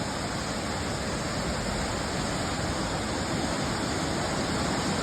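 Fast-moving flash-flood water rushing past in a steady, even noise.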